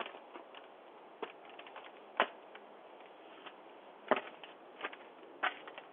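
Scattered, irregular clicks and knocks, the loudest about two seconds in, picked up through a Ring video doorbell's narrow-band microphone.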